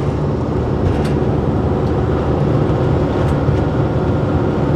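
Motorhome driving along: a steady low rumble of engine and road noise.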